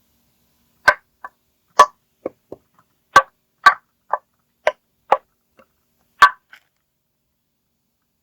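Tree knocks: a series of about a dozen sharp wooden knocks, loud and soft mixed, at uneven intervals over some six seconds, of the kind used as a Sasquatch call.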